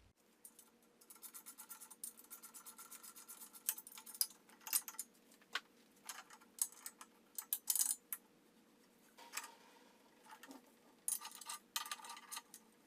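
Hand tools working on a bare engine block: a run of fast, even clicks, about ten a second, for a couple of seconds, then scattered metal clinks and scrapes.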